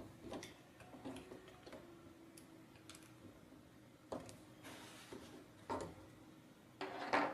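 Faint scattered clicks and light knocks of a small screwdriver turning bolts into the plastic pillars of a robot kit, with hands handling the plastic parts; a few louder knocks come in the second half.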